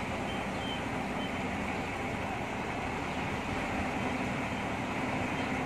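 Heavy diesel engine running steadily at constant speed, with a low hum.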